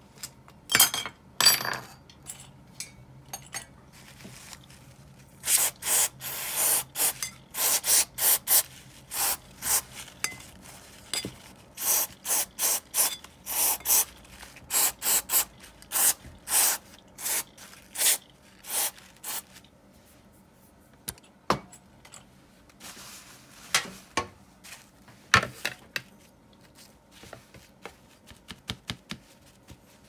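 Hand work on the small parts of an Abu Garcia Ambassadeur 1500C baitcasting reel: a long run of short scratchy strokes, one or two a second, then a few sharp clicks and faint ticks of parts being handled near the end.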